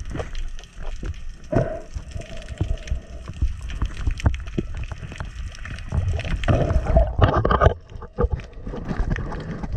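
Water gurgling and sloshing with many sharp knocks and clicks throughout, and a denser rush of sound about two-thirds of the way through.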